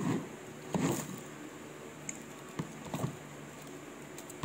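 Eating a balut with a spoon: four or five short, soft sounds of chewing and a metal spoon scraping the egg inside its shell.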